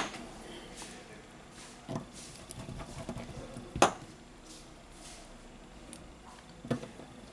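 A few small clicks and taps as the opened Samsung Galaxy A70 and its parts are handled on the repair mat, the loudest about four seconds in.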